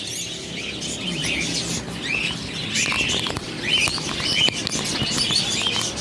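Many caged birds in a bird shop chirping over one another in short, repeated high chirps, with a few sharp clicks in the middle.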